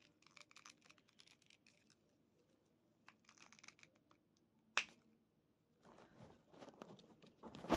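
A small plastic action figure being handled, its head worked on a ball-joint neck: faint rustling and light clicks, with a sharp plastic click about five seconds in and another near the end.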